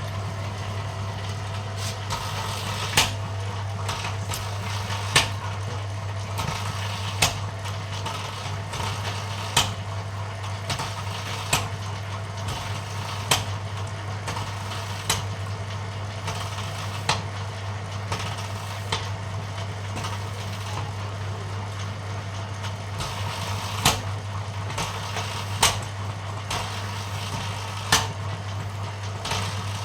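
Bamboo-thinning machine running with a steady low motor hum, and a sharp knock about every two seconds.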